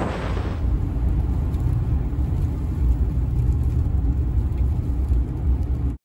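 A car driving on a wet highway: a steady low road rumble, with a hiss of tyre spray that dies away about half a second in.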